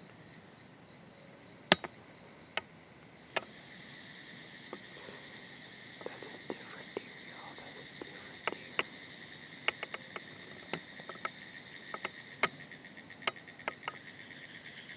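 Steady chorus of evening insects such as crickets, a continuous high-pitched drone. Scattered sharp clicks and snaps sound over it throughout, the loudest a little under two seconds in.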